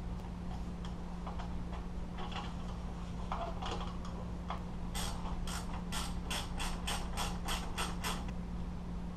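A ratcheting mechanism clicking: a few scattered light clicks and taps, then about halfway through a run of about ten sharp, evenly spaced clicks at roughly three a second for some three seconds. A steady low hum sits underneath.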